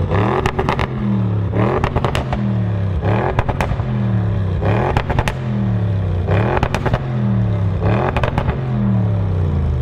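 Audi RS6 Avant's twin-turbo V8 revved hard while standing, about six quick blips roughly a second and a half apart. Each rise and fall in revs is topped by a spray of sharp exhaust crackles and pops.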